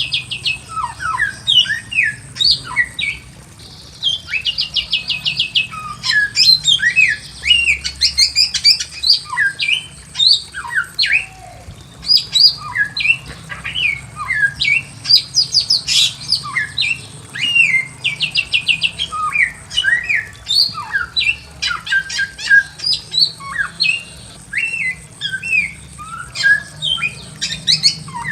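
Bare-throated whistler (samyong) singing a continuous, varied song of quick sliding whistled notes, broken by several bursts of fast trills.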